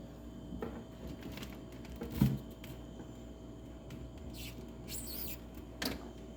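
Household door handling, most likely the fridge being opened. There are soft clicks, one loud thump about two seconds in, then a rustle and a sharp click near the end, over a faint steady hum.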